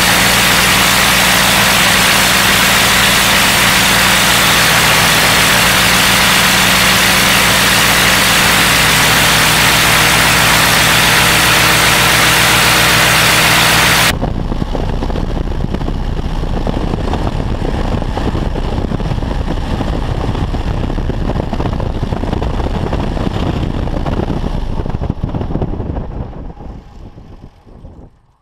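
Propeller-driven piston aircraft engine of a Fokker Dr.I replica running at a steady high setting with a loud rush of propeller wash. About halfway through it drops abruptly to a lower, pulsing run, then fades away near the end.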